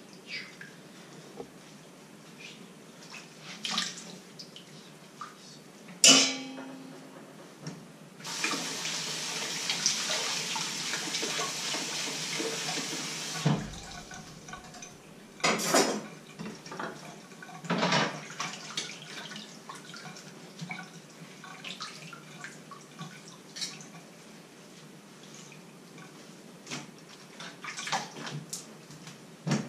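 Washing dishes by hand at a stainless steel sink: scattered clinks of dishes and cutlery being scrubbed with a sponge, a loud metallic clang that rings briefly about six seconds in, and the tap running for about five seconds near the middle, followed by a couple more knocks.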